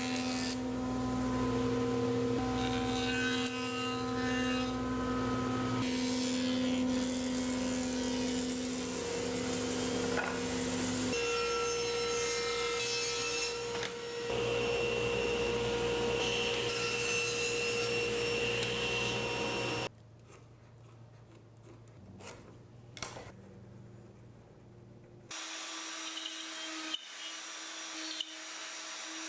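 Woodworking machines cutting walnut in turn: a jointer running steadily as a board is fed over it, then a table saw running and cutting, a quieter stretch with a few knocks about two-thirds of the way in, and a plunge router running near the end.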